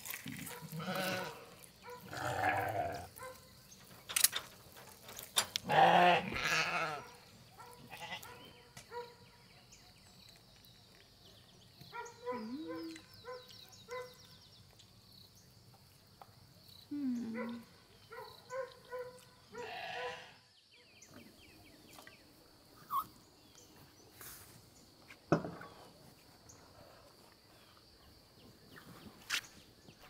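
Farm animal bleating, several separate wavering calls in the first twenty seconds, then a single sharp knock a few seconds later.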